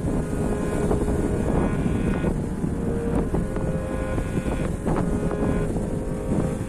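Steady low rumble of a vessel under way on the open sea, with wind buffeting the microphone and a faint steady hum coming and going over it.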